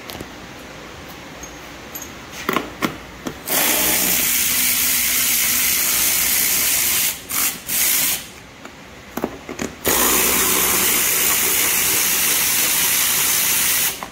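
Power ratchet spinning out small bolts from a generator's front panel: two long runs of several seconds each, with a few short bursts and clicks between them.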